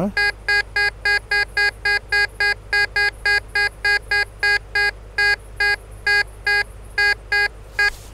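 Tesoro DeLeon metal detector giving its target tone as the coil is swept back and forth over a buried metal object. It makes a quick series of short beeps, all at the same pitch, about two to three a second, which stop just before the end.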